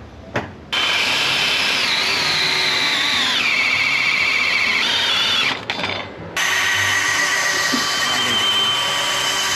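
Electric drill running under load, its whine dropping in pitch about three seconds in and rising again; it stops briefly about halfway through, then starts again and keeps running.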